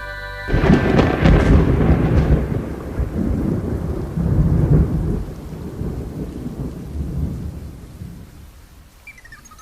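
Thunderclap with rain: a sudden crack about half a second in, then a low rumble that rolls on and slowly fades away over several seconds.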